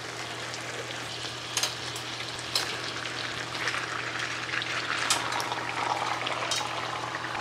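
Marinated beef chunks sizzling as they go into hot oil and butter in a wok with softened onions and garlic, the frying growing fuller as more meat is added, with a few sharp clinks of a metal utensil against the wok.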